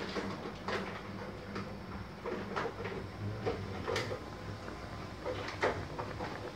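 Water boiling hard with snakehead fish in a wok, bubbling with irregular small pops over a low steady hum.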